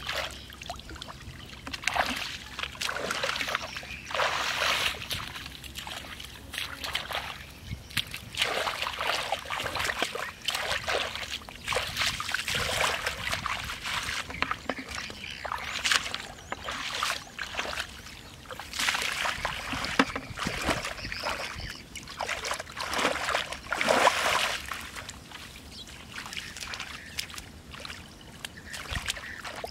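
Shallow muddy paddy water splashing and sloshing as hands dig and grope through it, in irregular bursts.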